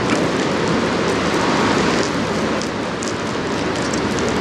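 Steady rushing hiss of rain and water, with faint drop ticks here and there, as a large bulk freighter's hull pushes through the river close by.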